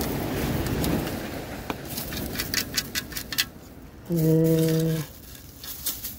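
Sand and shells rattling and clicking in a sand scoop as a beach target is dug and sifted, then a metal detector's steady low beep lasting about a second.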